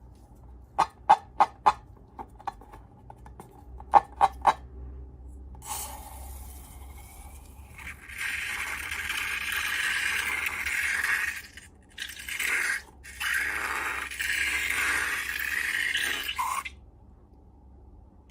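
Slime-making handling sounds: a quick run of sharp clicks and taps, then a long scraping hiss that drops out briefly twice before stopping near the end.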